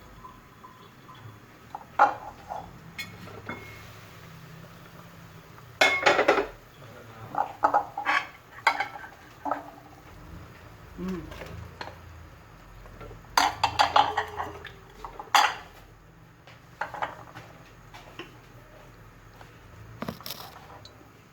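Metal cookware and utensils clinking and clattering in irregular bursts, as pots, lids and spoons are handled, over a low steady hum.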